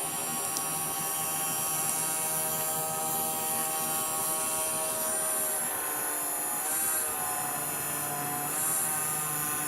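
Wood lathe running steadily, its motor giving a hum of several steady tones, while friction polish is rubbed onto the spinning pen blank with tissue. The tones waver briefly about seven and nine seconds in.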